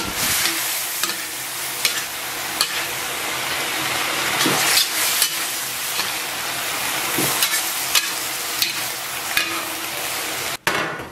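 Octopus and vegetables sizzling in a hot wok while being stir-fried with a metal spatula that scrapes and clinks against the pan every second or so. The sizzle breaks off briefly near the end.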